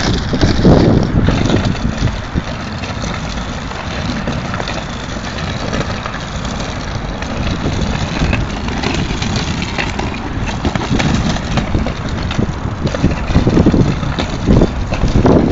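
Casters of a wheeled flight case rolling over rough asphalt as it is pushed along, a steady rattling rumble that swells louder near the start and end.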